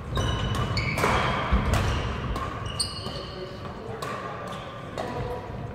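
Badminton rally on a wooden hall floor: repeated sharp racket strikes on the shuttlecock and short high squeaks of court shoes, ringing in a large hall, with voices in the background.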